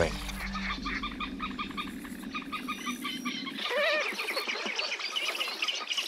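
Eurasian spoonbill chicks calling in the nest: a rapid run of short, high begging calls, with a louder call that sweeps upward a little past halfway.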